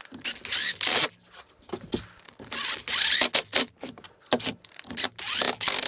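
Irregular rustling, scraping and knocking as a cordless drill, screws and a plywood part are handled on a wooden workbench.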